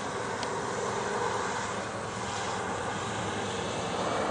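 Steady rushing outdoor noise with no clear single source, growing slightly louder toward the end, with a faint click about half a second in.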